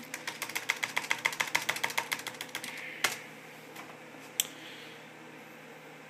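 Clicking at a computer: a rapid, even run of small plastic clicks, about ten a second for two and a half seconds, then two single sharper clicks about three and four and a half seconds in.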